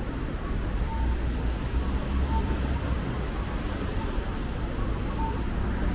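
Busy city street ambience: a steady low traffic rumble with voices of passers-by, and a faint short beep recurring about every one to one and a half seconds.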